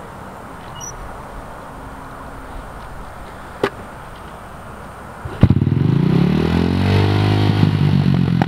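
Mini dirt bike engine kick-started, catching suddenly about five seconds in. It revs up briefly, then settles to a running idle.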